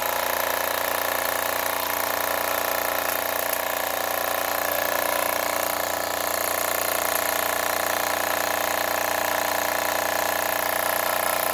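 Wilesco toy steam engine's steam whistle blowing steadily over the hiss of escaping steam while the little engine runs.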